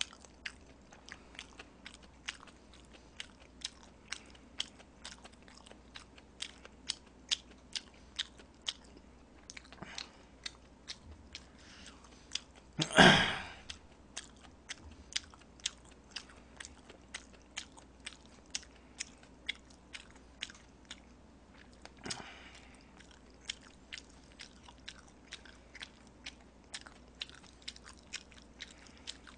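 Close-up mouth sounds of a person chewing jjapaghetti black-bean noodles: soft wet clicks, about two or three a second. Around the middle comes one short, much louder rush of noise.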